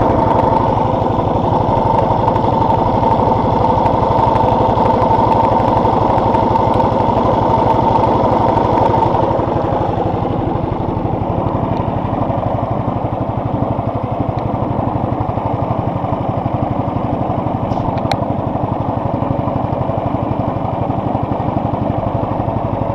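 A small boat's engine running steadily under way at trolling speed. About nine and a half seconds in it eases down and becomes quieter and duller.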